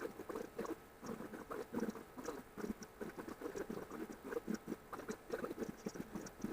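Sound of a cat and her kittens sped up by a timelapse, heard as a fast, irregular chittering patter of tiny squeaks and ticks.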